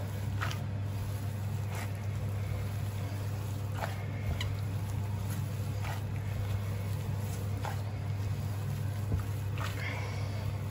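Gloved hand squeezing and kneading sticky ground pork with shredded pork skin in a pot, soft wet squelches every second or two, over a steady low hum.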